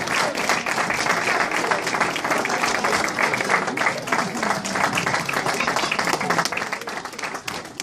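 Audience applauding, a dense clatter of many hands clapping that dies away near the end.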